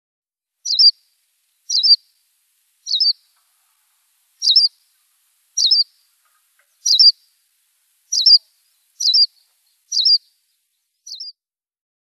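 Madeira chaffinch giving a short, high call about once a second, ten calls in all, the last one fainter.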